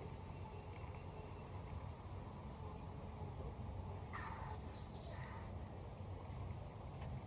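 A bird singing a run of about a dozen short, high, downward-sliding chirps, two to three a second, with a brief harsher sound partway through, over a steady low outdoor rumble.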